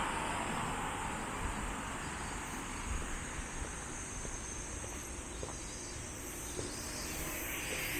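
Outdoor roadside ambience: a passing vehicle fades away in the first second, leaving a steady low background hiss with a faint high-pitched hum and a few light clicks.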